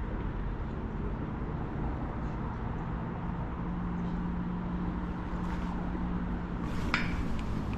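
Steady low rumble with a low hum running through it, and a brief sharp click just before the end.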